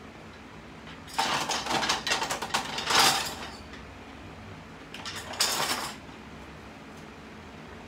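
Two bursts of clattering and rustling handling noise: one about a second in that lasts two seconds, and a shorter one about five seconds in.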